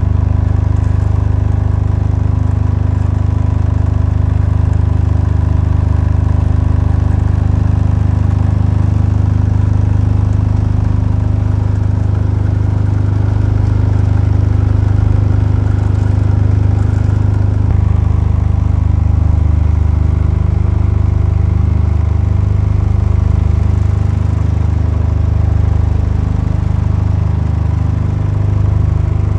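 An engine running steadily at idle, a deep continuous hum whose tone shifts slightly about two-thirds of the way through.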